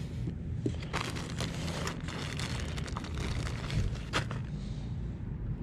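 Plastic bag crinkling and rustling as hands rummage through fishing tackle, from about a second in until just after four seconds, over a low steady rumble.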